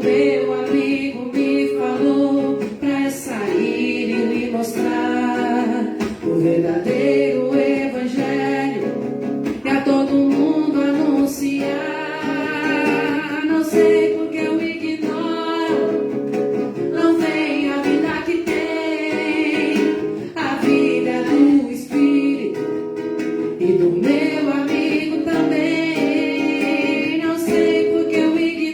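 A song sung to a plucked guitar accompaniment, the voice carrying a melody throughout.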